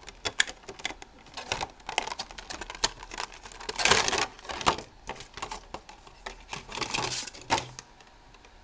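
Clear plastic blister packaging crackling and clicking as it is handled and a cable is pulled out of it. Irregular ticks throughout, with louder crinkly bursts about four and seven seconds in.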